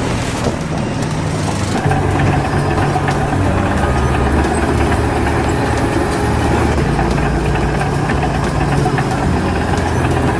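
A large engine running steadily, with its low hum shifting in pitch every second or so.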